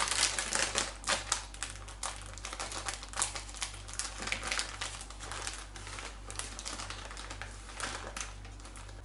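Plastic bag of ground hazelnuts crinkling and rustling as it is handled and squeezed, while the hazelnut meal is shaken out of it into a plastic bowl. It is a dense, irregular run of small crackles.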